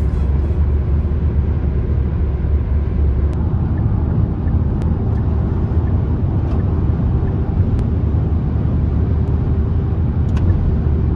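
Steady low rumble of road and engine noise inside a car cabin while driving along a highway.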